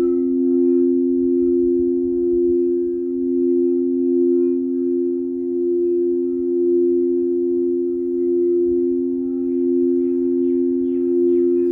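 Singing bowls ringing in two steady low tones that swell and fade in a slow pulse. Near the end, a bird chirps a quick series of short falling notes.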